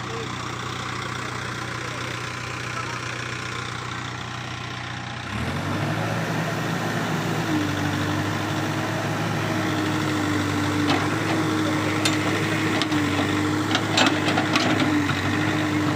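JCB machine's diesel engine idling, then revving up sharply about five seconds in and running louder at a steady higher speed under work. Several sharp metallic knocks and clanks in the second half.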